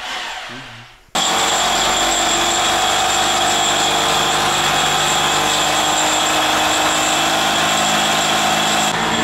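Electric power tool running steadily, cutting wiring chases into an old Soviet concrete wall. It comes in suddenly about a second in and holds an even motor tone.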